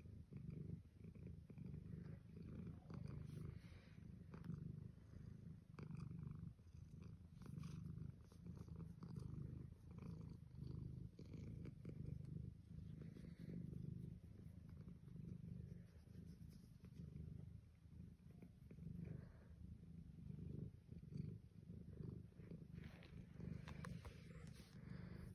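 Orange tabby cat purring while being stroked: a quiet, low rumble that swells and fades with each breath.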